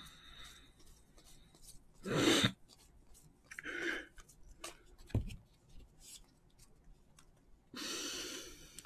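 Quiet handling of trading cards and pack wrappers: faint clicks and rustles, a short loud burst of noise about two seconds in, a sharp click about five seconds in, and about a second of rustling near the end.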